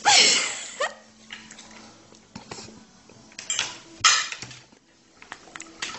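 Cutlery and dishes clinking in scattered sharp knocks and clicks, the loudest about three and a half and four seconds in. A loud cry glides down in pitch at the very start.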